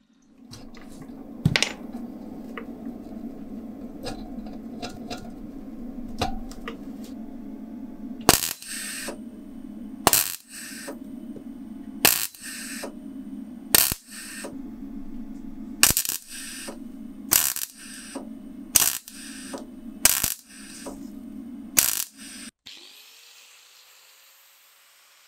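Electric arc welder tack-welding a key bit onto a steel rod: about nine short, sharp arc bursts, each under half a second and one to two seconds apart, over a steady low hum that stops with the last burst.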